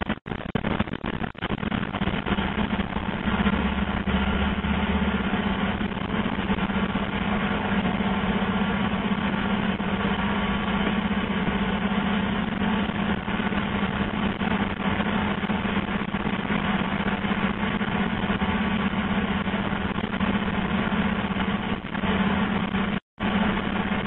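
Fibre optic cable blowing machine running steadily as it blows cable into sub-duct on compressed air: a constant hum with rushing air noise over it.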